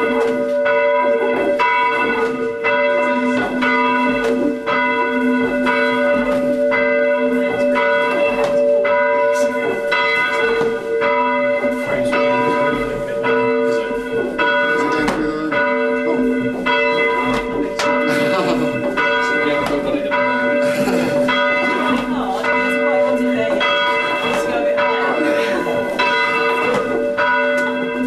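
A ring of three church bells being rung full-circle in changes, heard from the ringing chamber below: the bells strike one after another about twice a second over their steady humming tones.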